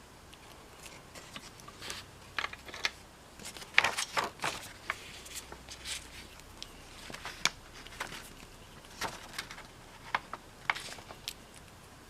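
Scattered light clicks and small rattles of relays and test leads being handled while each relay is checked by putting 9 volts across its coil.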